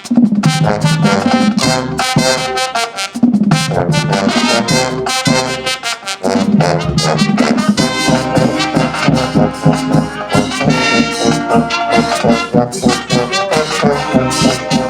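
High school marching band playing loud: trombones and trumpets holding low chords over drums, in phrases that break off briefly about three and six seconds in.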